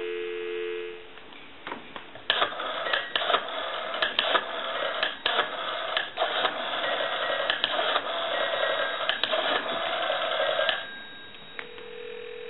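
Telephone dial tone, two steady low tones, cuts off after about a second. Then the Western Electric 354's rotary dial is pulled around and returns digit after digit, with clicking and line noise. A steady ringback tone starts near the end.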